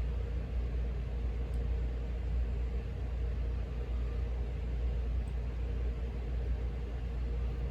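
Steady low hum of background room noise, with a couple of faint small clicks.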